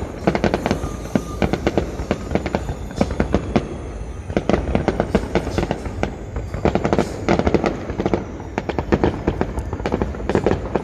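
Fireworks going off: a dense, irregular run of sharp bangs and crackles, with no break.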